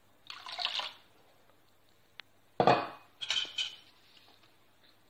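Steel ladle clinking and clanking against a stainless steel vessel while stirring thin dosa batter, in a few separate knocks with a sharp clank a little past halfway. A short splash of water being poured into the batter comes near the start.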